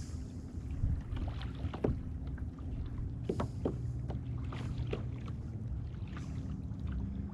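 Small waves lapping and slapping against a plastic kayak hull in short, irregular splashes, over a low steady hum, with brief hissy gusts of wind or spray.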